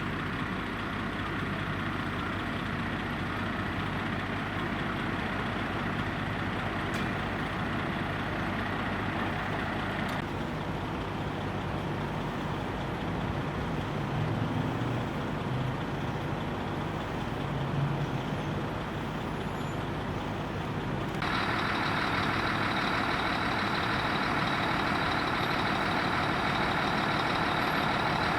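Heavy fire-rescue truck engine running steadily: a 1986 Mack MC686 walk-in rescue. A little over two-thirds through, it turns louder and brighter, with a steady high whine added.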